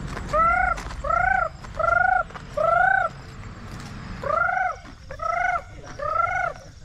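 A girl imitating a peacock's call: seven loud cries, each rising and then falling over about half a second, four in a row, then a short pause, then three more.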